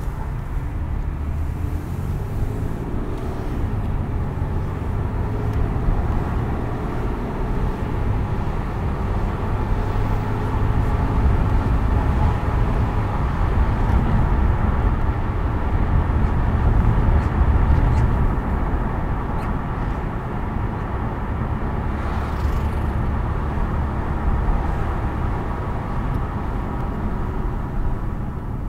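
Car driving along: a steady low rumble of engine and tyre noise that grows a little louder toward the middle and eases off near the end.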